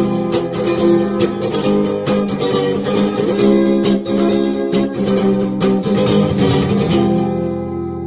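Acoustic guitar strummed in a steady rhythm through the song's closing bars. About seven seconds in the strumming stops and the final chord is left ringing.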